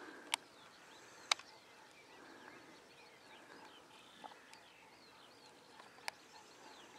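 Faint birdsong, a scatter of small chirps over a quiet background, broken by two sharp clicks in the first second and a half and a smaller click about six seconds in.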